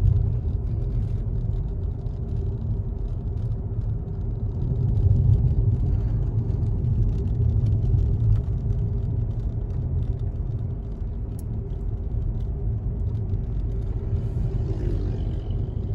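A car driving along: a steady low rumble of engine and road noise, with no sudden events.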